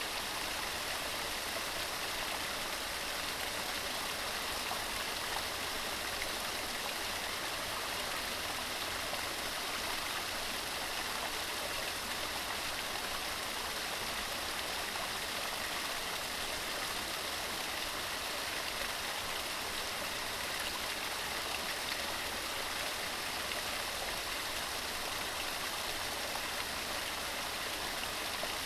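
Mountain stream running steadily over rocks: a constant, even rush of flowing water.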